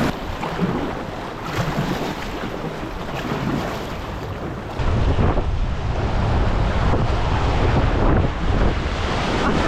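Rushing whitewater of a river rapid, with wind buffeting the microphone. The sound gets suddenly louder and deeper about halfway through.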